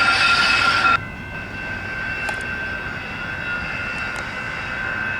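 A train of passenger cars rolling past on the rails: a steady rush of wheel noise with thin, steady high-pitched ringing tones. The louder rush drops off suddenly about a second in, leaving a quieter steady rolling sound.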